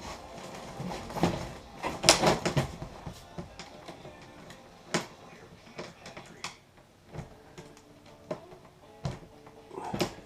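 Irregular knocks, clicks and rubbing as gear is pushed and worked into an aircraft cargo pod, the loudest knocks coming about two seconds in.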